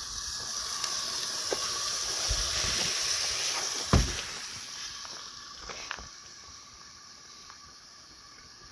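Cooking on a propane stove fed from a big tank: a steady hiss with a few sharp pops, the loudest about four seconds in. The hiss fades gradually over the second half.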